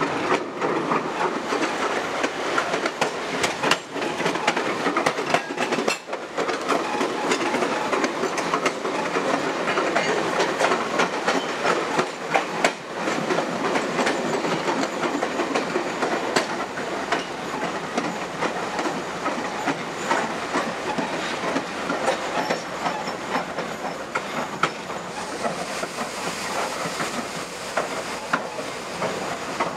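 Passenger car's wheels running along jointed track, a steady rumble with irregular clicks as they pass over rail joints, heard from the back of a moving train.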